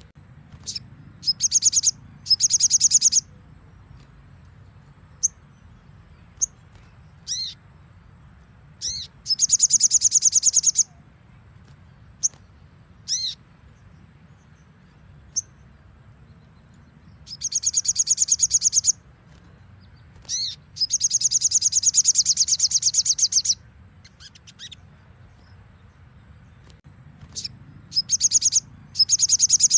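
A sogon bird gives bursts of rapid, high trills, the shot-like 'nembak' song prized by keepers, each burst lasting one to two and a half seconds. Single short, high call notes fall between the trills.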